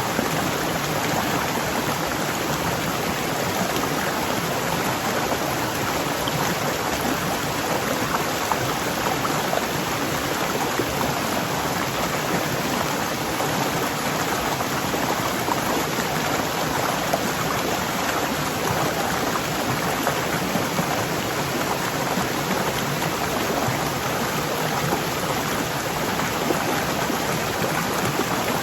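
Waterfall rushing: a steady, even wash of falling water with fine splashing texture and no let-up.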